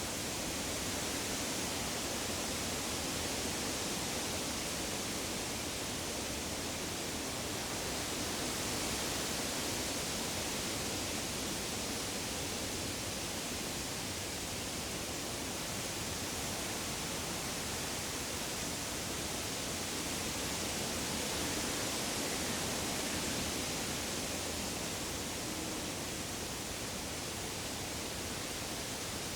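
Woodland atmosphere: a steady, even rushing hiss, strongest in the high range, that swells gently and eases off again, with no distinct bird calls or other single sounds standing out.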